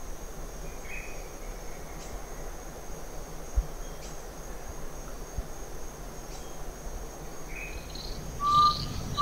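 Cloud-forest ambience: a steady, high-pitched insect buzz over a faint hiss, with a couple of brief bird calls. Near the end a bird gives a quick run of short whistled notes with higher chirps, the loudest sound.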